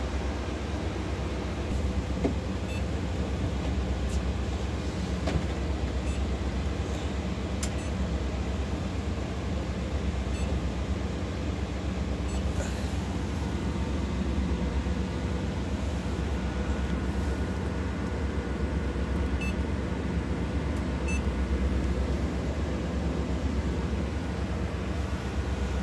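Steady low hum of a stationary Urbanway 18 natural-gas articulated bus running at idle, heard inside the driver's cab, with a few faint clicks.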